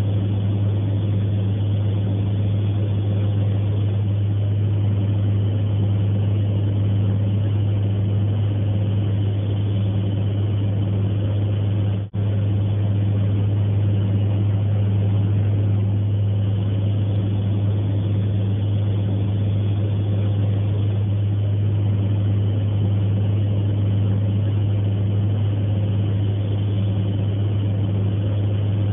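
Steady low drone of an aircraft's engines heard from inside the aircraft, unchanging in pitch and level. It cuts out for an instant about twelve seconds in.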